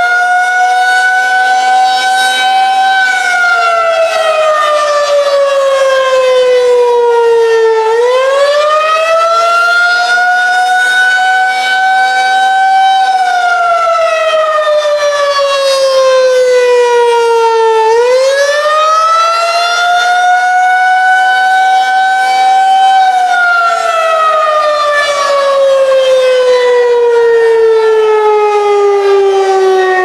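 Federal Signal 2001-SRNB electronic tornado siren sounding its attack (wavering) tone: a loud wail that rises quickly, holds briefly, then slides slowly down, repeating about every ten seconds, three times.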